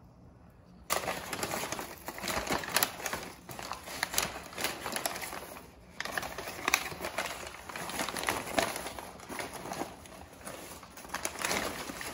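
Brown kraft paper wrapping crinkling and rustling as it is handled and pulled off a flower bouquet, starting about a second in, with a brief lull about six seconds in.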